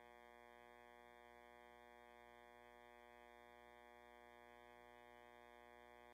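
Near silence with a faint, steady electronic hum made of many held tones.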